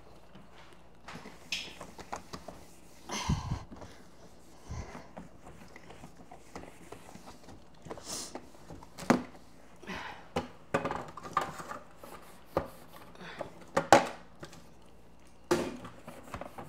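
Scattered knocks, taps and clatter of household items being handled during fridge cleaning, with a few brief rustles; the sharpest knocks come about nine and fourteen seconds in.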